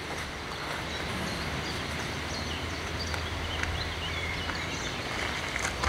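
Outdoor background ambience: a steady low rumble and hiss with a few faint, brief high chirps of small birds.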